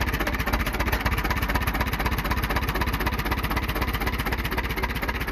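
A 1940 Allis-Chalmers UC tractor's four-cylinder engine idling steadily, with an even, rapid firing beat.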